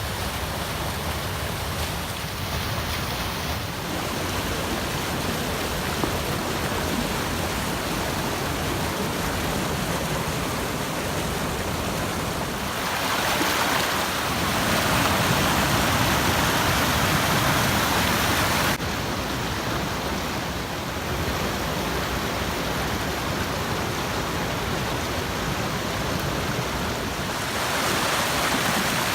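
Creek water flowing steadily over its bed. Its rush grows louder about halfway through, then drops back suddenly a few seconds later.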